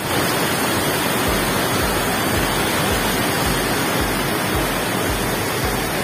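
Water rushing loudly out of an opened dam gate and falling into the pool below, a steady roar with a low, pulsing rumble underneath.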